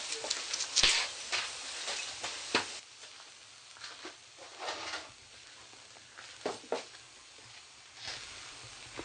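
Hot charcoal and slag from a bloomery furnace crackling as they are raked and knocked about with tools: a run of sharp clicks and scrapes over a hiss, thinning to scattered knocks after about three seconds.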